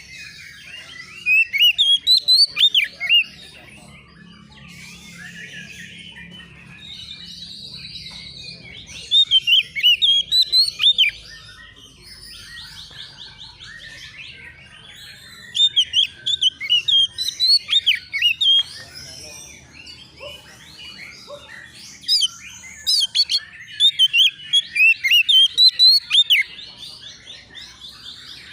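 Oriental magpie-robin (kacer) singing in four loud bouts of rapid, sweeping whistled phrases, each two to four seconds long. Softer continuous chirping and trills run beneath.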